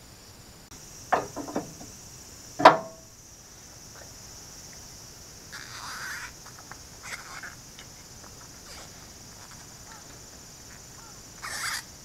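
Metal clicks and clinks from refrigerant cans and fittings being handled while an A/C gauge manifold is purged and a can tap is screwed onto a refrigerant service can. There are a few sharp clicks early on, the loudest about two and a half seconds in, then softer scraping as the can tap is threaded on. A steady high-pitched hiss runs underneath.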